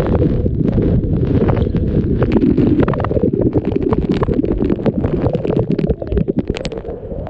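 Heavy waterfall spray and wind pounding the camera's microphone: a loud, continuous low rumble with dense crackling of water striking it.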